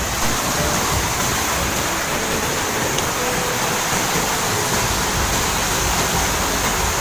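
Muddy flash-flood torrent rushing past, carrying branches and debris: a steady, unbroken rush of water.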